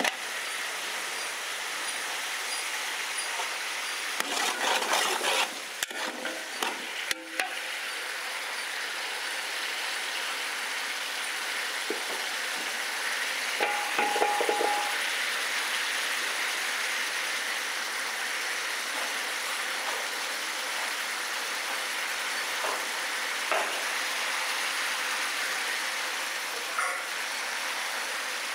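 Chopped vegetables frying in a large aluminium pot, a steady sizzle throughout. A metal stirring rod clatters against the pot about four to seven seconds in, and a brief tone sounds about fourteen seconds in.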